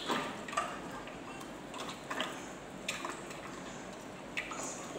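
Thick chocolate popsicle mix pouring from a stainless steel bowl into a popsicle machine's mold, with a few light knocks scattered through.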